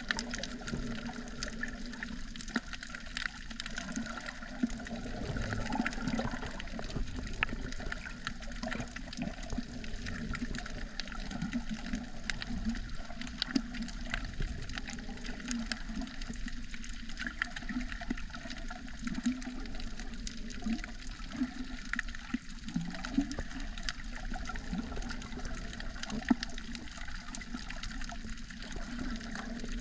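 Water heard underwater: a steady muffled rush and gurgle of moving water, with many small sharp clicks scattered through it.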